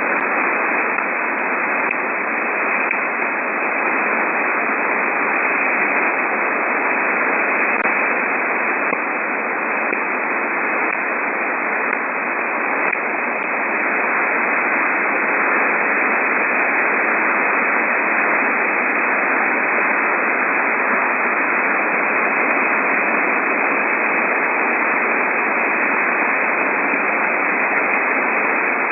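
Shortwave radio receiver tuned between 12.9 and 13.2 MHz giving steady static hiss, with faint, sharp ticks at random intervals, mostly in the first half: unexplained pips on the band.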